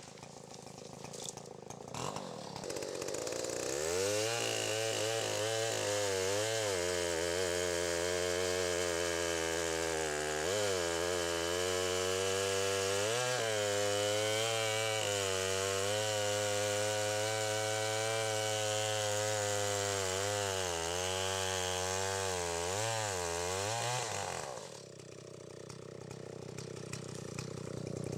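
Stihl 090 two-stroke chainsaw running at full throttle in a cut for about twenty seconds, its pitch dipping again and again as the chain bites into the wood. It drops away near the end.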